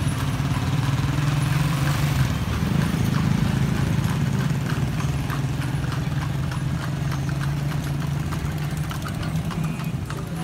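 Horse's hooves clip-clopping at a steady pace on a paved street, several evenly spaced hoofbeats a second, from a horse-drawn carriage. A steady low engine hum from traffic runs underneath.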